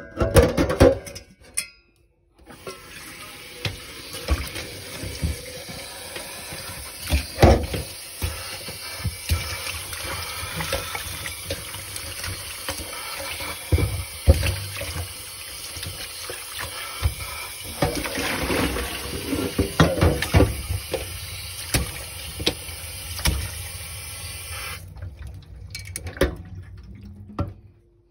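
Kitchen tap running into a stainless steel pot in the sink, filling it with water over saba bananas, with occasional knocks against the metal. The water starts about two seconds in and cuts off a few seconds before the end.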